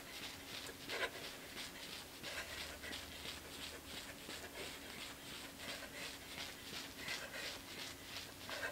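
A woman panting hard from exertion, quick faint breaths about three a second, over a faint steady hum.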